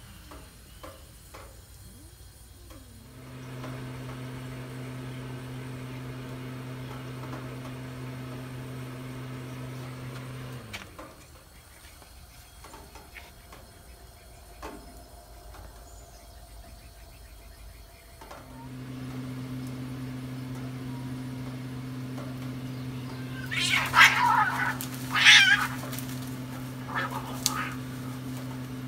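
Two barn cats in a standoff: long, low, steady moaning yowls held for several seconds at a time, then a brief fight about three-quarters of the way through, with a few seconds of loud screeching and hissing.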